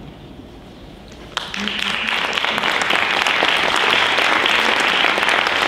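Audience applauding. The clapping starts suddenly about a second and a half in and holds steady.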